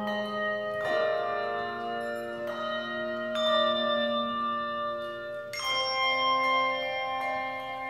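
Handbell choir ringing a slow piece: chords of handbells struck four times, a second or two apart, each chord ringing on into the next.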